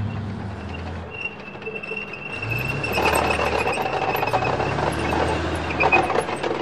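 A military-style off-road jeep drives past on a paved street. Its engine and tyre noise is loudest from about three seconds in, as it passes, then fades as it moves away.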